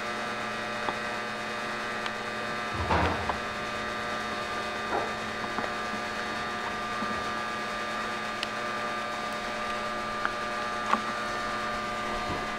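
Steady electrical hum, with a few light clicks and a short rustle about three seconds in from hands handling a metal fuel-line fitting as it is threaded together by hand.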